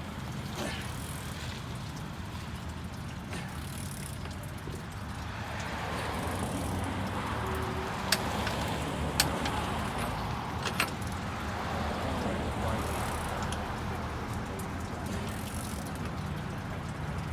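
An engine running steadily at low speed, with a few short sharp clicks about halfway through.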